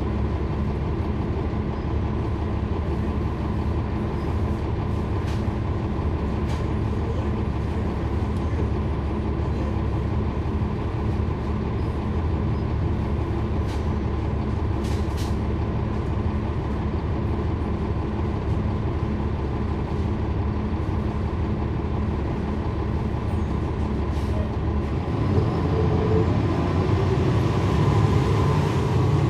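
Cummins ISL9 inline-six diesel engine of a NABI 40-foot transit bus running steadily, with a few faint clicks. About 25 seconds in it grows louder and fuller, as the bus pulls harder.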